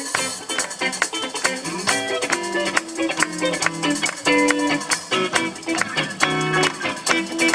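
Live band playing an instrumental passage: electric bass guitar and drum kit, with quick, crisp percussion ticks keeping a fast, steady beat.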